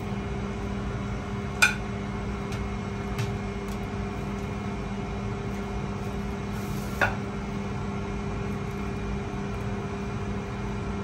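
Steady machine hum under the scene. Metal cutlery clinks sharply on a plate about one and a half seconds in and again about seven seconds in, with a few lighter taps between, as roast lamb is served.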